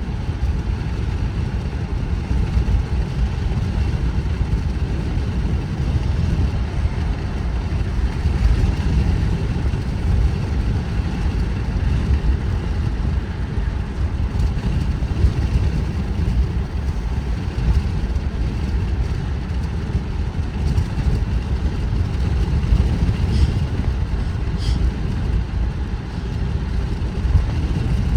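Car driving steadily at about 35 mph, a steady low rumble of road and engine noise.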